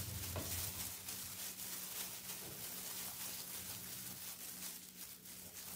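Gloved hand rubbing crumbly rice-flour dough through a stainless steel mesh sieve: a soft, continuous fine scratching and rustling, over a faint steady low hum.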